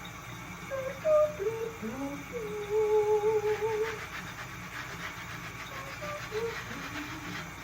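A person humming a short, wandering tune to themselves, with one note held for about a second and a half near the middle. Faint scrubbing is heard behind it in the second half.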